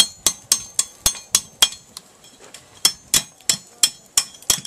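Blacksmith's hammer striking hot steel on an anvil in a steady run of ringing blows, about three a second, splitting open the end of a forge-welded bar. The blows pause for about a second midway, then resume.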